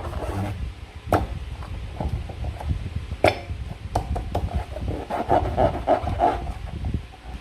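Slime being squeezed and handled by hand: irregular wet squelches and crackles, with sharp clicks about a second in and again about three seconds in.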